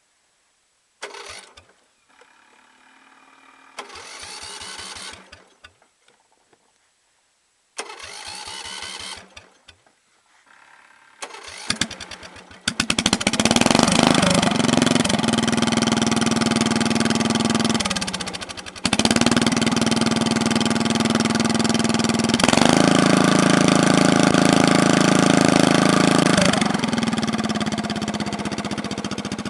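Briggs & Stratton 12.5 HP riding-mower engine being cranked by its starter in several short tries before it catches about thirteen seconds in. It then runs loud and fast, dips briefly around eighteen seconds, runs louder still for a few seconds and settles back to a lower speed near the end.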